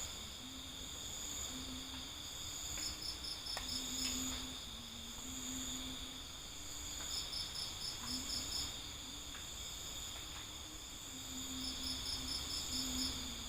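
Crickets calling at night: a steady high trill runs throughout, and every four or five seconds a second cricket chirps in a quick run of about eight even pulses lasting a second.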